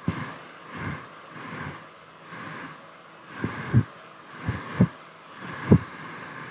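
Hair dryer blowing, a steady rushing hiss that swells and fades about once a second, with irregular low thumps of its airflow buffeting the microphone.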